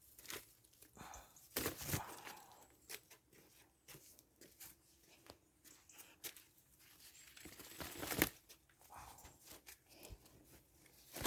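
Eggplant plants' leaves and stems rustling, with irregular sharp snaps and crackles as the fruit is picked.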